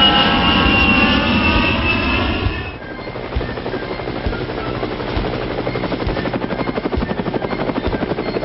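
Jet aeroplane sound effect, its engine whine falling in pitch as in a flyby. About three seconds in it gives way to a helicopter's rapid rotor chop, with a low thump about once a second.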